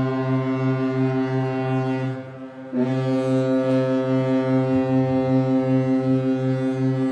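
Ship's horn blowing long, deep blasts: one fades out about two seconds in, and a second starts about a second later and holds steady.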